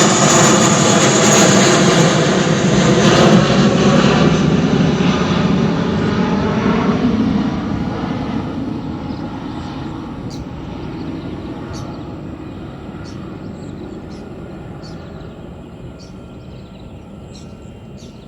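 Airliner engines at takeoff power, loud at first and then fading steadily over the last ten seconds or so as the plane moves away.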